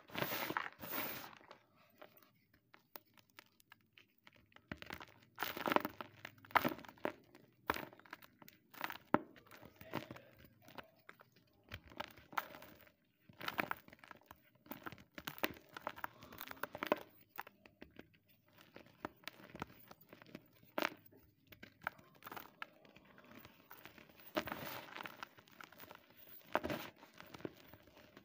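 Gym chalk blocks being crushed and crumbled by hand in a tub of loose chalk powder: irregular crunches, some sharp and loud, with softer crumbling and rustling of the powder between them.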